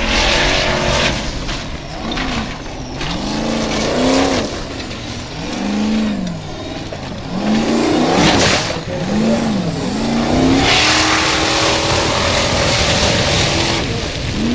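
Formula Offroad buggy's engine revving hard up and down over and over as it claws across loose gravel. Bursts of hissing spray come from gravel and dirt thrown by the spinning tyres.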